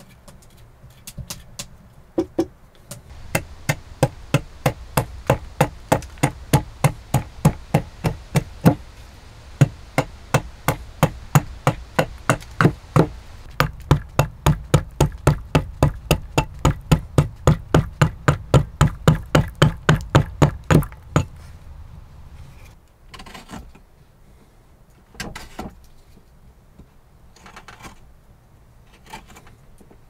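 Wooden mallet striking the handle of a carving chisel driven into wood, a steady run of sharp knocks about two to three a second. The knocks stop about two-thirds of the way through, and a few softer, scattered sounds follow.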